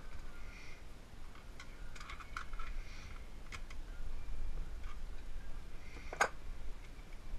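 Small irregular clicks and taps of hands working a cable and cable gland into an electric motor's junction box, with one sharper, louder click about six seconds in.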